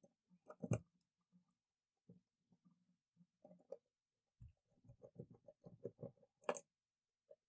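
Small T7 Torx driver working the knife's small handle screws: faint ticking and scraping of the bit in the screw heads, with a run of quick small ticks in the middle and two sharper clicks, one near the start and one near the end.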